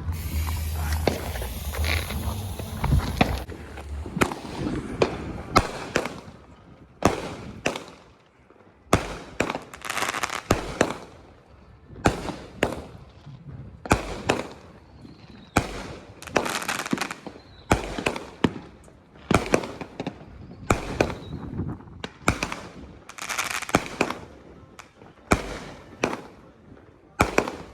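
Consumer firework cake going off: a long run of sharp reports, about one to two a second, each trailing off in a short crackle. A low rumble and a hiss fill the first few seconds.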